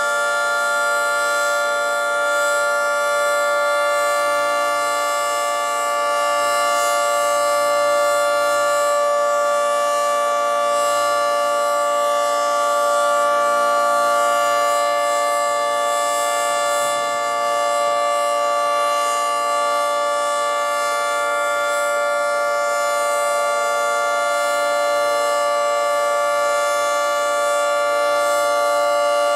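Federal Signal 2T22 dual-tone outdoor warning siren sounding a steady alert signal for a tornado drill test. Its chord holds one pitch without winding up or down, at a loud and almost constant level.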